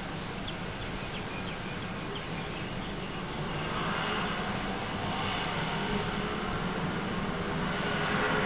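Street traffic heard through a window screen: a vehicle passes, and the noise swells about halfway through and stays louder to the end.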